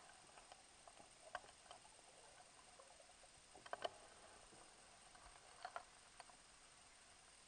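Near-silent underwater ambience with scattered faint clicks and taps, a small cluster of them a little before the middle.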